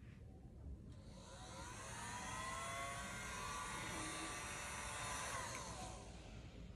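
Faint engine noise of something passing by, swelling from about a second in and fading away near the end.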